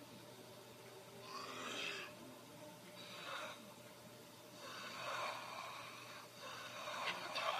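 Faint breathy, whisper-like sounds come in a few short bursts over a steady hiss. They are offered as a psychophony, a ghostly voice caught on tape during a Ouija board session.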